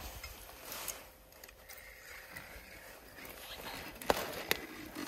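Quiet handling of a fishing rod and line at an ice hole, with two short sharp clicks about four seconds in.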